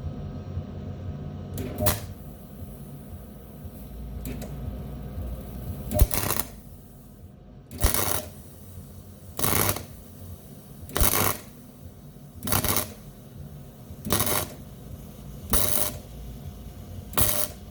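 MIG welder arc crackling in short bursts of about half a second, repeated roughly every one and a half seconds, with a single brief burst a couple of seconds in. The trigger is being pulsed to build up a plug weld on steel.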